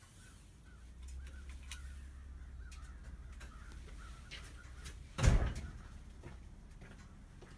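A door bangs once, a single heavy thump about five seconds in, over a low rumble, with faint chirps before it.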